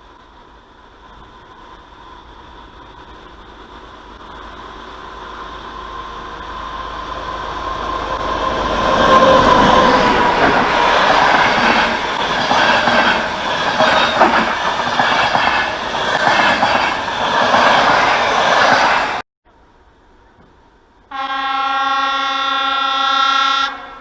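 A train approaching and passing close by, its sound building to a loud rush with rhythmic clickety-clack of wheels over rail joints, cut off abruptly. After a brief gap, a train horn sounds one steady blast of about two and a half seconds.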